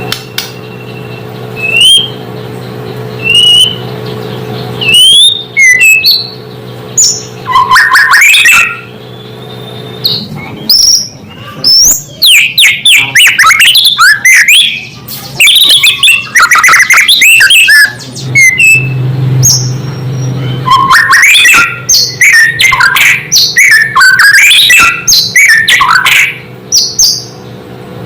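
White-rumped shama (murai batu) singing: separate loud whistles at first, then from about ten seconds in a dense run of rapid, varied whistled and chattering phrases. This is the territorial song that provokes rival shamas. A steady low hum runs underneath.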